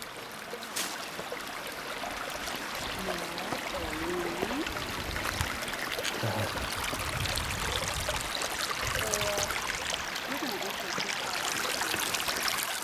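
Creek water rushing, a steady hiss that grows gradually louder, with faint distant voices now and then.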